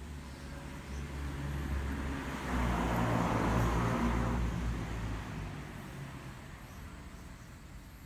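A road vehicle passing by: a low engine rumble and tyre noise that swell to their loudest about three to four seconds in, then fade away.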